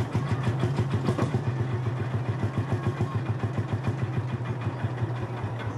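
Old tractor engine idling with a quick, even beat and a steady low hum.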